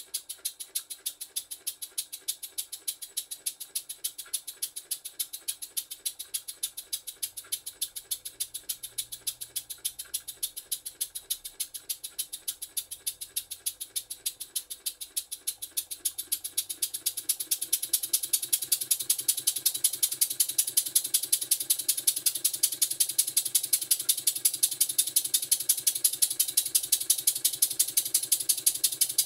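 Basset-Lowke Tangye model steam engine running on compressed air, its exhaust beat puffing rapidly and evenly with a hiss, growing louder about two-thirds of the way in. The beat sounds very hard, which the owner takes as a sign that the valve timing needs adjusting.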